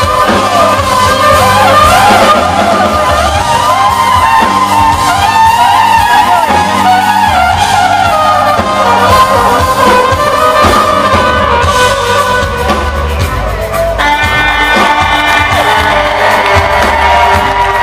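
Trumpet solo over a live funk band: a fast, winding melodic line over bass and drums. About 14 seconds in, the trumpet holds one long high note.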